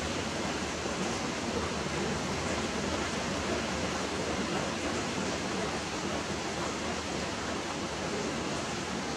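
A steady, even hiss that does not change, with no separate sounds standing out.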